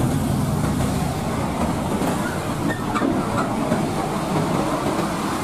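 Heavy road traffic passing close: a Hino container truck's diesel engine and tyres run by with motorcycles and a van. It is a steady, dense rumble with no breaks.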